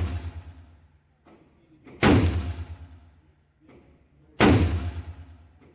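Two rifle shots from a 10.5-inch-barrel AR-15 firing .223 FMJ, about two and a half seconds apart, each a sharp report with a long fading echo. The tail of a shot fired just before also dies away at the start.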